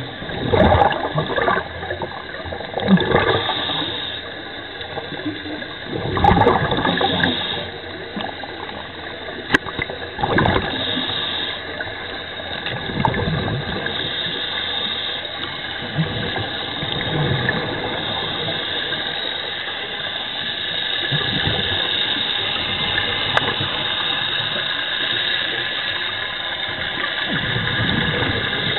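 Underwater ambience with scuba divers' exhaled bubbles gurgling in rushes every few seconds over a steady hiss. There are a couple of sharp clicks.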